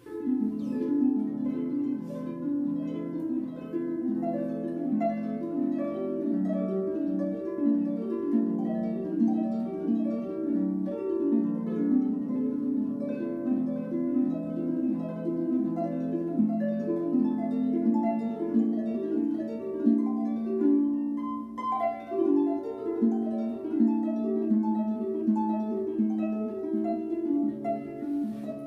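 Solo harp playing a quick, flowing run of plucked notes, mostly in the middle register, with a short break about three-quarters of the way through.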